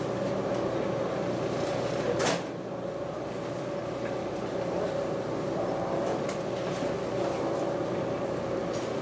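Cabin ambience of a stationary 413/455-series electric train car: a steady hum with one constant mid-pitched tone from the car's onboard equipment, a short burst of rushing noise about two seconds in, and a few faint clicks.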